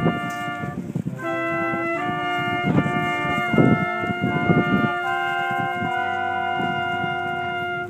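Brass quintet playing sustained chords, pausing briefly about a second in, then closing the phrase on a long held chord that stops at the very end. A few short low rumbles break in around the middle.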